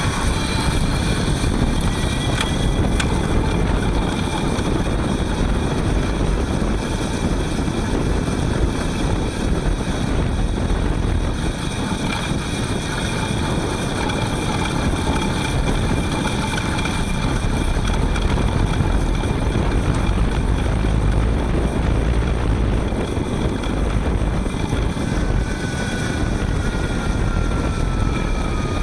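Panasonic ViVi Charge WT electric-assist bicycle's hub motor whining steadily while riding, over wind and road noise; a whine falls in pitch over the last few seconds as it slows.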